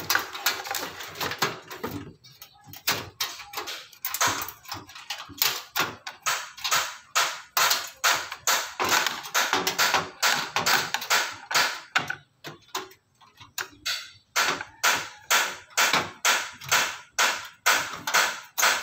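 A quick, uneven series of light clicks and knocks, about two or three a second, from hands handling parts inside a desktop PC case, with denser rustling in the first couple of seconds.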